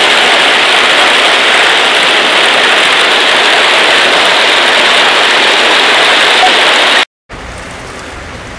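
Hail and heavy rain falling on polycarbonate roof tiles: a loud, dense, steady clatter. It cuts off suddenly about seven seconds in and is followed by much quieter rain on a polycarbonate roof.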